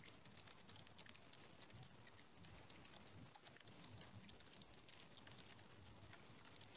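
Near silence with faint, irregular light clicks and taps scattered throughout.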